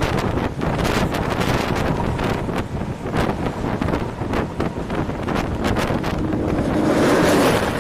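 Strong wind buffeting the microphone in gusts, swelling loudest near the end.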